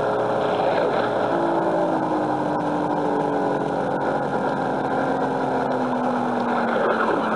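A motorboat-like engine hum, its pitch slowly falling over several seconds, over a steady rushing hiss.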